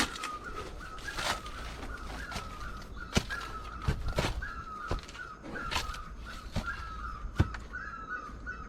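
A bird calling over and over, a short note repeated about twice a second, with footsteps and scattered knocks on dry rocky ground.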